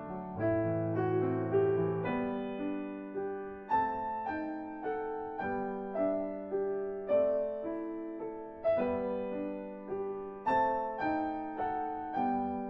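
Background piano music: an even, gentle run of struck notes that ring and fade, with a stronger accent about every second and a half.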